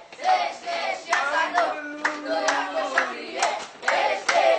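A group of boys singing together while clapping their hands, about two claps a second.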